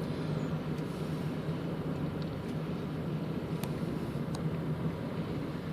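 Car driving along, heard from inside the cabin: a steady drone of engine and road noise with a constant low hum, and a couple of faint ticks past the middle.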